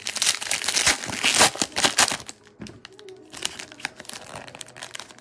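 Foil wrappers of baseball card packs crinkling as they are handled, dense for the first two and a half seconds, then quieter and scattered.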